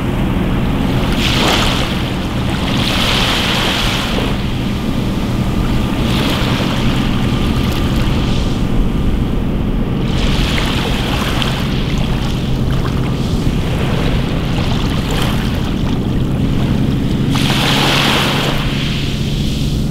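Small waves washing up and draining back over a pebble beach, a hissing surge every two to three seconds, over a steady low drone.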